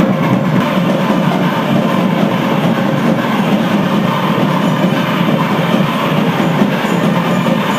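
Loud, steady din of a temple festival procession: drumming and crowd noise blended into a dense wash with no clear beat.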